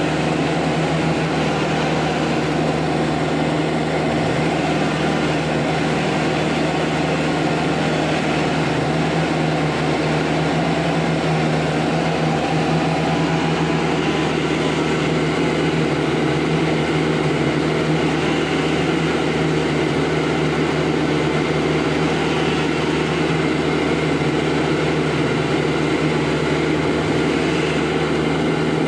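Truck engine idling steadily with an unchanging low hum.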